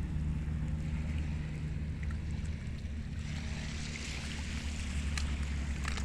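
Shallow sea water washing over a rocky tidal flat, a hiss that grows louder about halfway, over a steady low hum.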